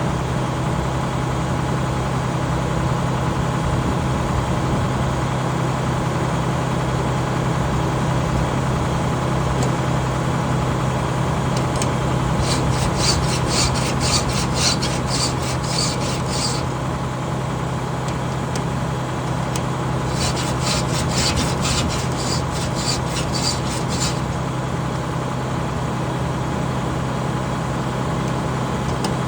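Hand file rasping across the teeth of a sawmill saw in two spells of quick, even strokes, about halfway through and again a few seconds later, over a steady low engine hum.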